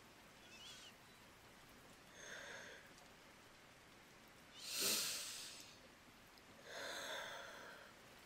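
A woman breathing slowly and softly as in sleep, about one breath every two seconds. The breath about five seconds in is sharper and louder than the rest.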